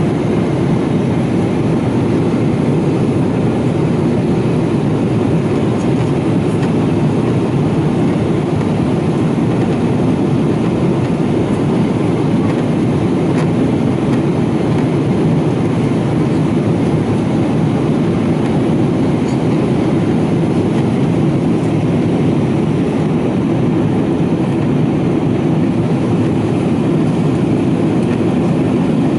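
Steady cabin drone of a Boeing 777-200ER in flight, the rush of airflow and its Pratt & Whitney PW4074D engines heard from a window seat over the wing. Low and even throughout.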